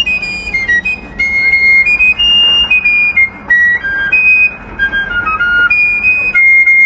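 A wooden fife playing a solo Revolutionary War-style tune: a single line of clear, high notes, each held briefly, stepping up and down, with a faint steady hum underneath.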